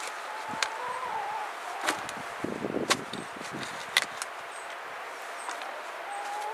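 A spade digging compost out of the bottom hatch of a plastic compost bin: several sharp knocks of the blade and a crunchy scrape of soil about halfway through.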